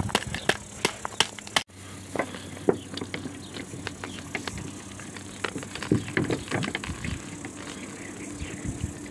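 Gloved hands kneading a moist raw-meat and bulgur çiğ köfte mixture in a metal tray: quick squelching and scraping strokes at about three a second, then less regular after a sudden brief dropout about a second and a half in.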